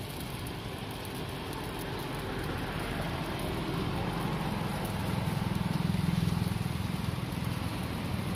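Roti frying on a flat steel griddle, a steady hiss, under a low rumble that swells about five to six seconds in and then eases.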